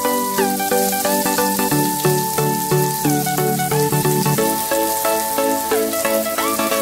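Onions, green chillies and mustard seeds sizzling in oil in a steel kadai, heard under instrumental background music with a sliding melody and a steady beat.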